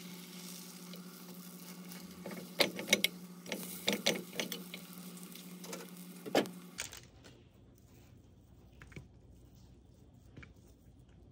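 Egg frying in a nonstick pan over a steady low hum, with a string of sharp clicks and taps from wooden chopsticks and a silicone spatula against the pan as the egg sheet is rolled up. About seven seconds in the sound drops to faint soft tearing of imitation crab sticks being shredded by hand.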